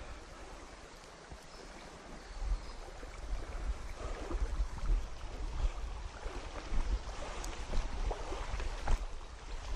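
Shallow river water running over stones, growing louder from about two and a half seconds in, with wind buffeting the microphone as a low rumble and a few faint clicks near the end.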